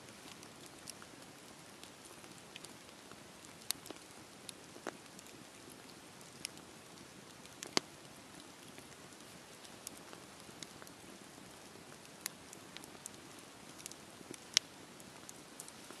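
Wood campfire burning: a steady soft hiss with scattered sharp crackles and pops from the logs, two of them much louder, about halfway through and near the end.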